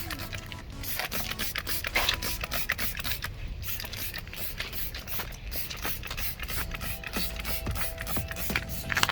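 Rapid, steady ticking of a bicycle wheel's freewheel ratchet as the wheel turns.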